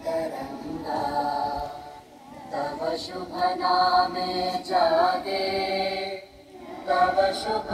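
A group of children singing together in unison, holding long notes in phrases separated by two short pauses.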